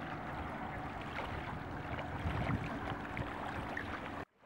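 Small waves lapping at a concrete lakeshore, with wind on the microphone, as a steady wash of noise that cuts off abruptly near the end.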